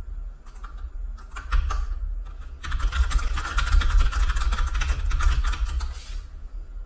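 Typing on a computer keyboard: a few scattered keystrokes, then a fast run of rapid typing starting about two and a half seconds in and lasting about three and a half seconds, over a low steady hum.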